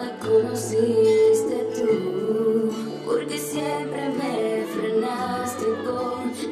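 Bachata music played for the dancers, with a sung vocal line over guitar and held bass notes.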